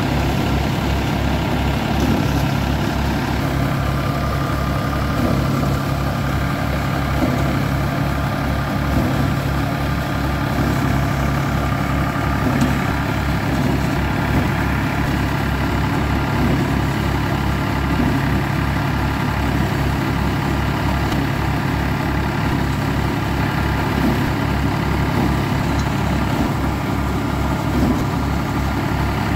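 Tractor engine running steadily, driving a Dasmesh paddy thresher through its PTO shaft. The thresher's drum whirs at constant speed as bundles of rice sheaves are fed in.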